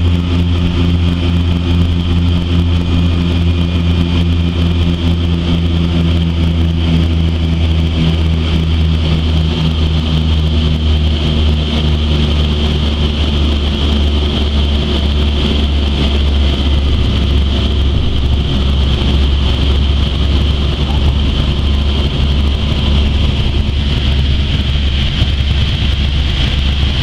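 A De Havilland Canada DHC-6 Twin Otter's Pratt & Whitney PT6A turboprop engines and propellers, heard from inside the cabin as the aircraft comes in to land and rolls along the runway. There is a steady low propeller drone with a high turbine whine over it, and the pitch of the drone shifts about ten seconds in.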